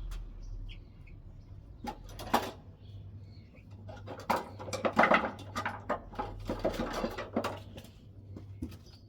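Hand tools and metal parts knocking and clattering: a couple of sharp knocks, then a busy run of rattling, clinking impacts for a few seconds in the middle, during work on a car's rear air-suspension spring.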